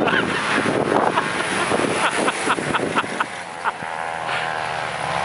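Hummer H1's engine working hard as the truck circles through soft sand, with a run of short sharp high blips about two to three seconds in.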